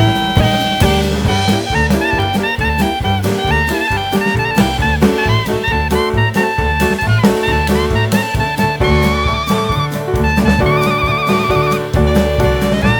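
Background music: an upbeat jazz or swing track with horn melody lines over a steady drum beat and bass.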